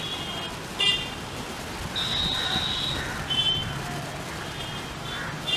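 Express train hauled by a WAP-4 electric locomotive running past with a steady low rumble, broken several times by short, high-pitched squeals.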